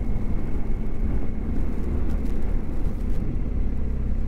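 BMW GS motorcycle running steadily on the road: a low, steady engine note under a haze of wind and road noise.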